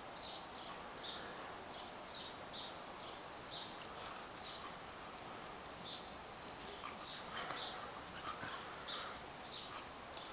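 A small bird chirping over and over: short, high, falling notes about twice a second, over faint outdoor background noise.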